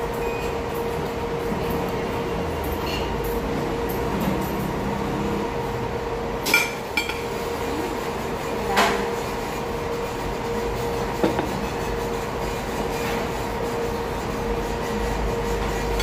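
Steady indoor room noise with a constant hum, broken by a few short clinks of a metal knife and fork against a plate, the loudest about six and a half seconds in and again near nine seconds.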